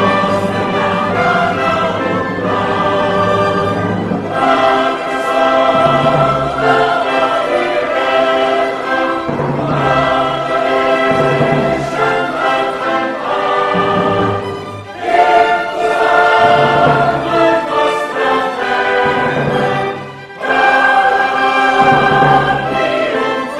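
Background music: a choir singing with orchestra in an operatic style, with sustained chords that briefly dip twice in the second half.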